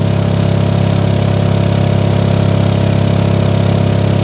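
Car-audio subwoofers driven by an Audiopipe APSM-1500 amplifier playing a 34 Hz sine test tone at full power: a loud, steady low drone with a buzzy stack of overtones. The amp is putting out about 990 watts into 1.94 ohms during a clamp test.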